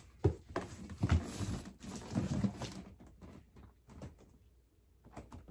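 A cardboard gift box being handled: a few sharp knocks in the first second, then scraping and rustling as it is shifted and lifted, going quieter in the second half.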